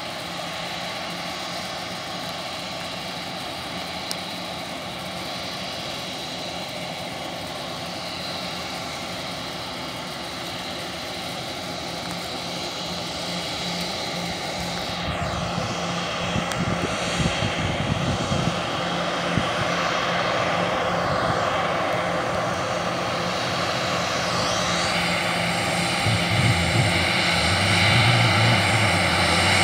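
Airbus A320's twin jet engines whining at low thrust as the airliner taxis past, growing louder from about halfway through.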